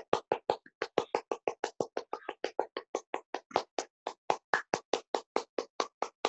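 One person clapping hands rapidly and steadily, about five claps a second. The rhythm falters briefly a couple of times.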